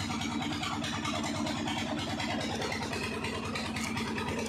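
An engine idling steadily, a constant low running sound with an even pulse.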